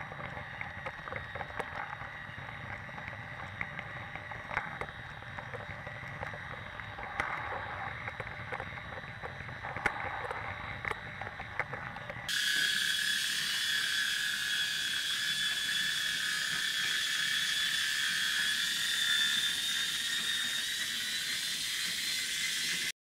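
Small electric motor of a motorised Brio wooden toy train whirring as it runs, wheels clicking sharply over the track joints. About twelve seconds in, the sound switches abruptly to a steady hiss with a held high whine.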